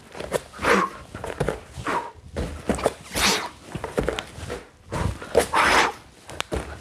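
A person doing burpees with a push-up on foam gym mats: repeated soft thuds of hands and feet landing and pushing off, with audible breathing between them.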